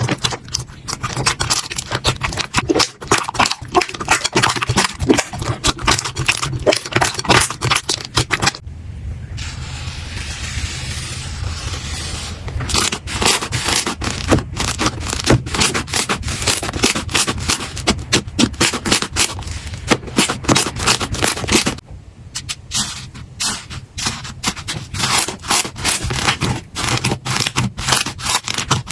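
Slime being pressed and worked by hand, giving dense crackling clicks and pops. About nine seconds in the clicking gives way to a smoother, steady hiss for about three seconds before the crackling returns.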